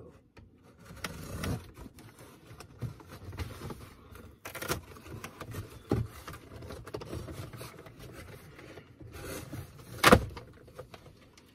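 Box cutter slicing through cardboard and packing tape: uneven scraping and small clicks, with a few knocks and a sharp crack of cardboard about ten seconds in as the box top is pulled open.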